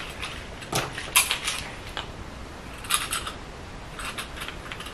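A few light clicks and short scratchy swishes from a fluffy makeup brush being handled and swept over the skin under the eyes, clearing away glitter and powder fallout.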